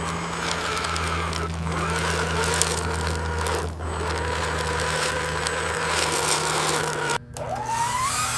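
Small motor whining steadily with a low hum and scattered clicks. It cuts out abruptly near the end and starts again with a rising whine.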